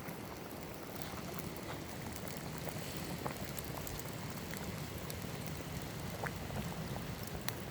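A pot of soup boiling over a campfire: a steady bubbling hiss with scattered small pops.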